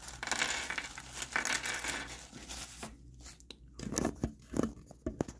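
Thin plastic wrapping crinkling and tearing as it is pulled off a bundle of small plastic toy accessories, followed from about three seconds in by a scatter of light clicks and knocks as the hard plastic parts are handled and set down on a table.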